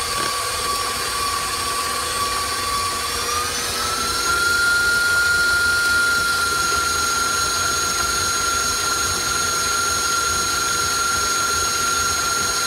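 Electric tilt-head stand mixer running, its motor whining steadily as the beater mixes cake batter in a steel bowl. About three seconds in the whine glides up in pitch as the mixer speeds up, then holds steady.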